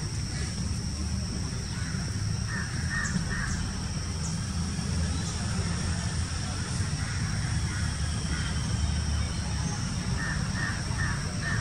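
A bird calling outdoors in short runs of harsh calls, three in quick succession about two and a half seconds in and four more near the end, over a steady low rumble.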